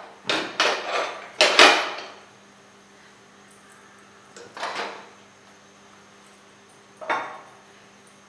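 A frying pan and cookware being handled: a run of clattering knocks in the first two seconds, then a single knock near the middle and another near the end, over a faint steady hum.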